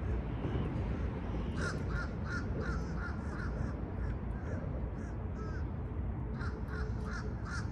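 Crows cawing in quick runs of short, repeated calls, about three a second: one run about two seconds in and another near the end, over a steady low rumble.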